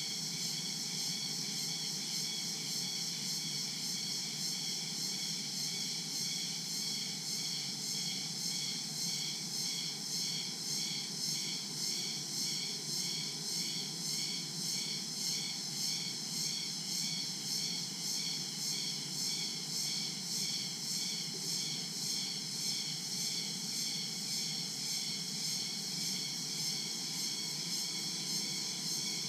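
A chorus of tropical jungle insects, crickets among them, keeping up a steady high-pitched shrill that pulses in an even rhythm throughout.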